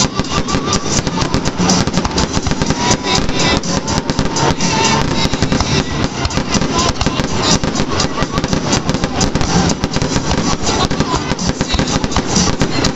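Fireworks going off in a rapid barrage of bangs and crackles, many a second, with music playing loudly underneath.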